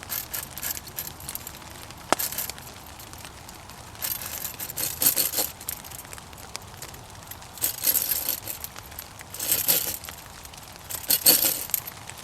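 A Bahco bow saw blade cutting notches into a bent wooden stick, in about six short runs of rasping strokes with pauses between them, with light metallic clinking.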